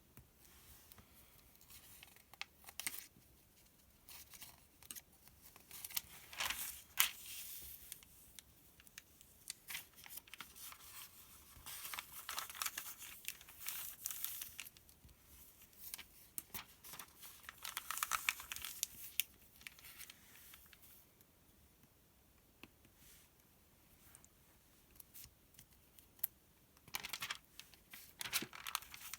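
Paper sales circular being handled and its pages turned: crinkling and rustling with sharp little crackles, coming in spells, with a quieter few seconds about three quarters of the way through.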